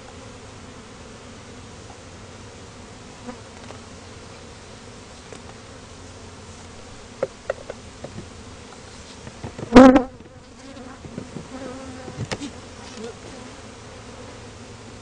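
Africanized honey bees from an angry, disturbed colony buzzing steadily around the hive. A few light ticks and one brief loud knock close to the microphone come about two-thirds of the way in.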